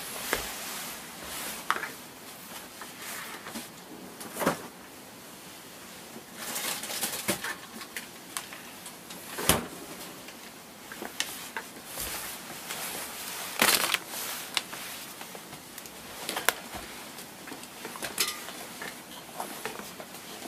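Rustling and scattered clicks and knocks of someone moving about and handling things, with louder knocks about nine and a half and thirteen and a half seconds in.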